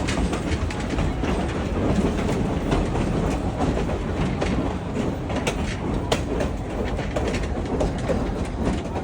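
Train rolling along the track: a steady rumble with rapid clicking of wheels over the rail, and a sharper clack about six seconds in.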